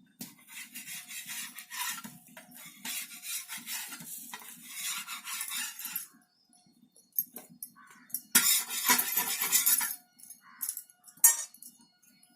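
Dishes and utensils being handled, with scraping and clinking in several stretches and the loudest clatter about two thirds of the way through.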